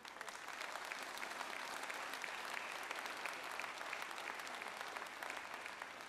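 A large crowd applauding: a dense patter of many hands clapping that swells quickly at the start, holds steady and thins out near the end.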